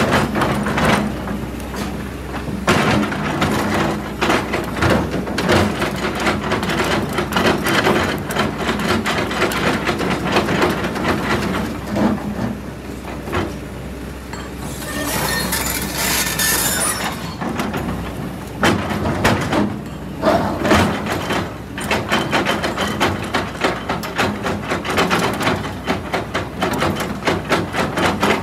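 Kobelco hydraulic excavator pushing a large boulder with its bucket over loose rock and soil: a dense, irregular clatter and crunching of stones over the machine's steady low engine running. A hiss lasts about two seconds just past the middle.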